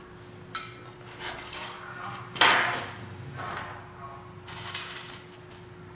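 Cotton quilt fabric being gathered and rustled by hand against a table, with scattered light knocks and clicks; the loudest is a brief rustle about two and a half seconds in.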